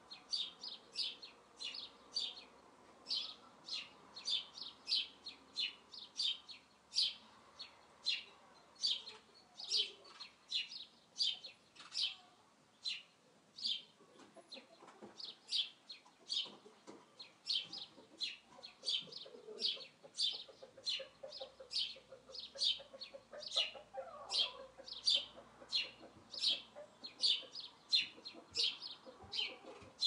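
A small bird chirping over and over, about two short, high chirps a second, with domestic hens clucking softly beneath it.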